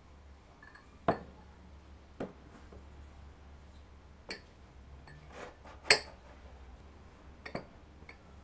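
White ceramic bowls set down one by one on a table: about six separate knocks and clinks, the loudest about six seconds in.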